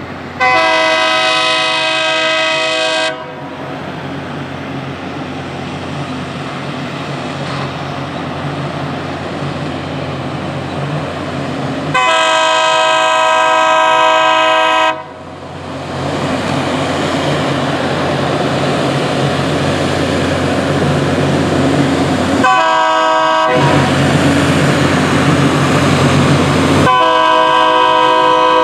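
Horn of the F40PH locomotive leading a Loram rail grinder train, sounding the grade-crossing signal: two long blasts, a short one, then a long one. Between the blasts the noise of the approaching train grows steadily louder.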